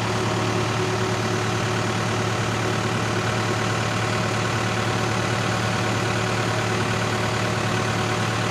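Cat E-series mini excavator's engine running steadily under hydraulic load, with the auxiliary circuit in continuous flow working the hydraulic thumb. With the thumb at the end of its stroke, the oil is going over the relief valve.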